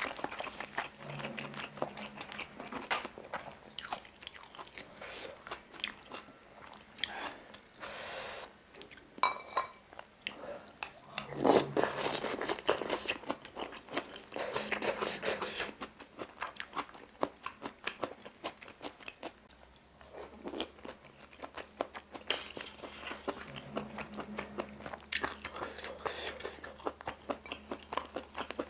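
Close-miked chewing and wet mouth sounds of a person eating spicy stir-fried octopus and rice: a dense run of small smacks and clicks, louder for a few seconds about halfway through.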